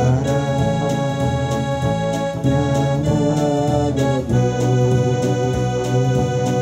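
Instrumental music on an electronic keyboard: held organ-like chords over a steady light beat, the chord changing about four seconds in.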